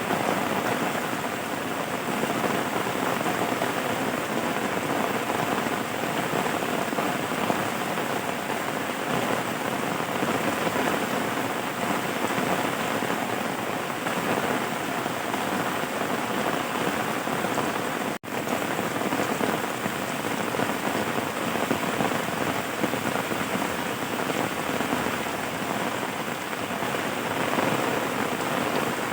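Steady rain falling, a continuous even hiss of drops on a surface. The sound cuts out for an instant about two-thirds of the way through.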